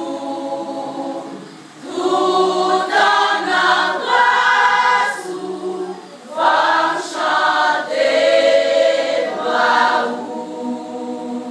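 Women's choir singing together in phrases, with short breaks between phrases about two seconds in and about halfway through.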